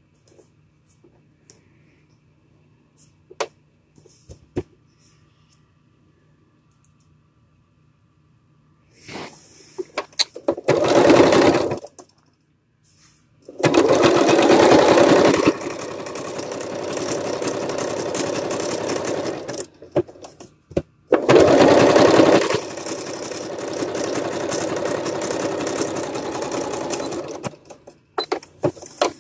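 Electric sewing machine stitching in runs: a short burst about ten seconds in, then two longer runs of several seconds with a brief stop between, each loudest at the start and then running steadily. Before that, a quiet stretch with a few light clicks.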